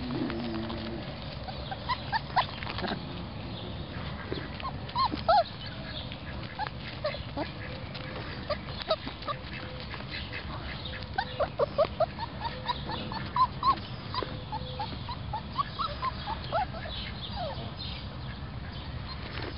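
Four-week-old puppies squeaking and yipping as they play, short high-pitched yelps scattered throughout, with a quick run of them about eleven seconds in.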